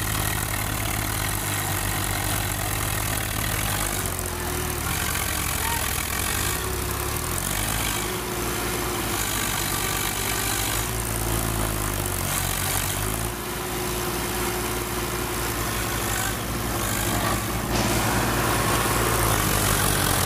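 Diesel engines of two tractors, a Swaraj 855 FE and an Eicher 557, running under load as they try to pull a stuck, straw-laden trolley out of the mud; the engine note rises and falls several times.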